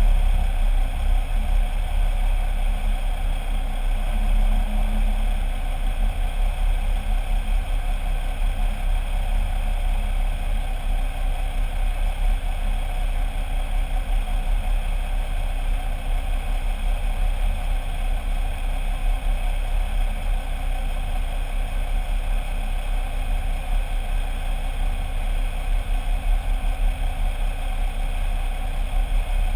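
Jeep Wrangler LJ's 4.0-litre straight-six engine idling steadily, heard from underneath the vehicle.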